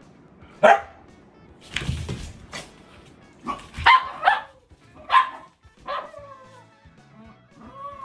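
Dogs barking in rough play: a sharp bark, a scuffling rush, then a quick run of barks, followed by drawn-out whining calls near the end. Faint background music underneath.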